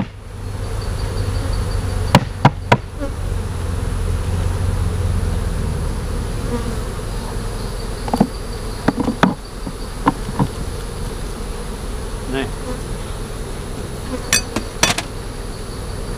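Honeybees buzzing steadily around an open hive. Sharp knocks cut through it: three close together about two seconds in, then scattered taps later, as hive frames and boxes are handled.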